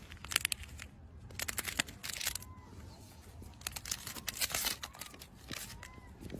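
Plastic snack wrapper crinkling and rustling in short bursts as a monkey grabs the packet and bites at it.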